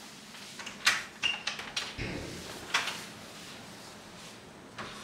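Wooden front door being unlatched and pulled open: a run of sharp clicks and knocks from the handle and latch, with a low thud about two seconds in.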